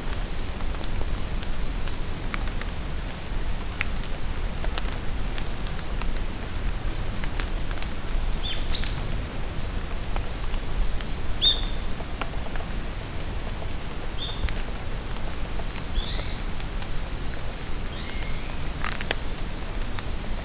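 Steady rain in a forest, with drops pattering in sharp ticks close by. Small birds call now and then with short high chirps and brief trills.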